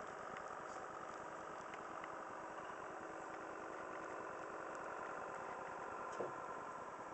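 A steady mechanical hum with faint even tones throughout, and a single soft knock about six seconds in.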